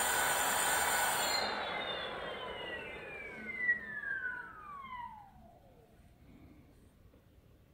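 Leafbike 60V 2000W direct-drive brushless rear hub motor spinning the unloaded rear wheel: its whine runs steady, a hiss above it cuts off suddenly about a second and a half in, then the whine falls steadily in pitch and fades as the wheel coasts down, nearly gone after about six seconds. A short knock sounds about halfway through.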